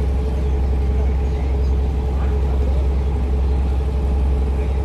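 The boat's engine running steadily at slow speed as the vessel passes under the bridge: a deep, even rumble with a constant hum over it. Nothing stops or changes.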